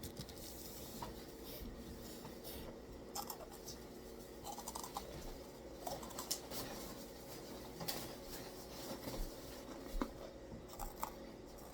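Quiet, scattered small clicks, scratches and rustles of food and takeout containers being handled at a table.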